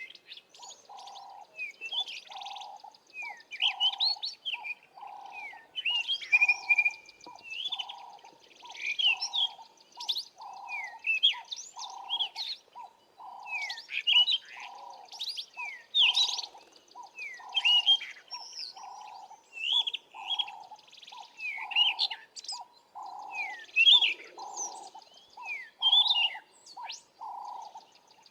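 A bush bird chorus: many short high chirps and whistles from several birds. Under them a lower note repeats steadily, about one and a half times a second.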